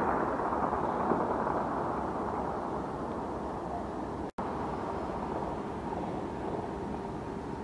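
Distant celebratory gunfire: the echo of a loud shot rolls and fades over the first two seconds, with another faint shot about a second in, then a steady distant rumble of the night air. The sound cuts out for an instant just after four seconds.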